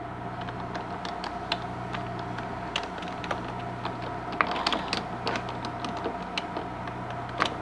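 Computer keyboard keys being typed on in slow, irregular clicks, a couple of presses louder than the rest.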